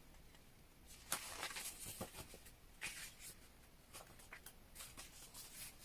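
Faint rustling and soft clicks of paper photos being handled and flipped through, in short scattered bursts.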